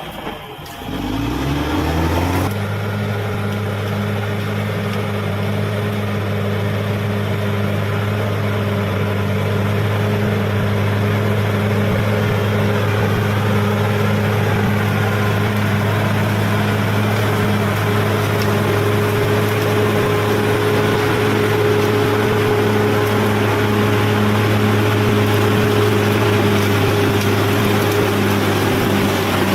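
Bulldozer's diesel engine running at a steady, constant pitch. In the first couple of seconds its pitch drops and climbs back up before settling.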